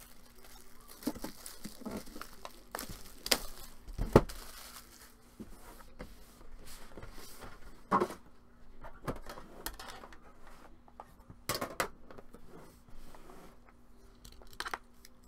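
Plastic wrapping being torn and crinkled off a trading-card box, with scattered sharp knocks and clicks as the box and its blue tin are handled on the table; the loudest knock comes about four seconds in.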